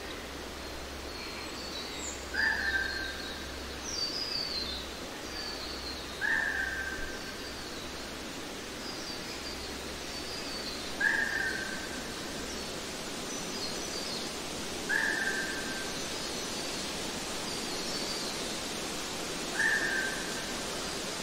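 Forest ambience of birds calling. One bird repeats a short, clear call about every four seconds, and other birds add high, descending chirps and trills, all over a steady hiss.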